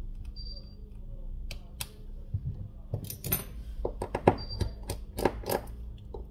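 Irregular small clicks and taps of a precision screwdriver on the tiny screws inside an opened smartphone, with parts handled against the frame. The taps come thickest in the second half.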